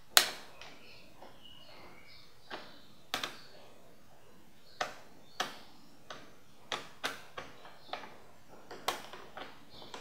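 Plastic RAM compartment cover on the underside of a Compaq Presario 2500 laptop being handled and pressed back into place. It gives irregular sharp clicks and light taps, the loudest right at the start.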